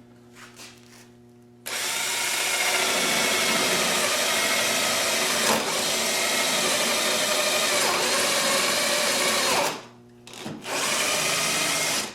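Cordless drill boring a hole into wood, running steadily for about eight seconds, stopping, then starting again about a second later.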